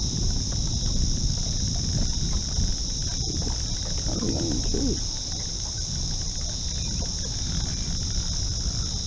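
Insects droning steadily in a high-pitched chorus, with a low rumble underneath and a few brief warbling sounds about four seconds in.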